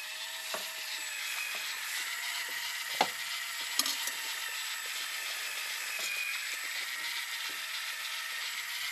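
Electric fishing reel winding line in against a heavy cod, a steady mechanical whirr with fine ticking. A sharp click about three seconds in and another just under a second later.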